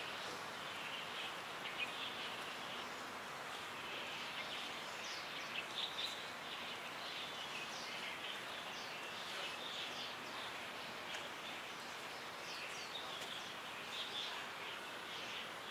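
Small birds chirping in many short, quick calls over a steady outdoor background hiss.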